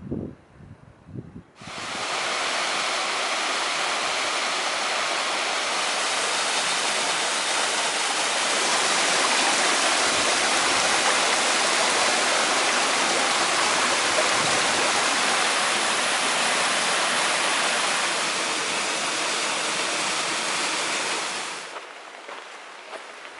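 Small waterfall cascading over rocks into a stony creek: a steady, even rushing of water that starts suddenly about a second and a half in and stops suddenly near the end.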